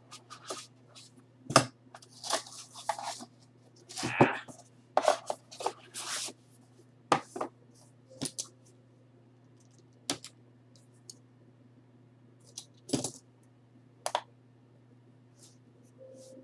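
A trading-card box being opened by hand and its banded stack of cards taken out and unwrapped: scattered sharp clicks and taps of cardboard and cards, with short bursts of rustling and peeling.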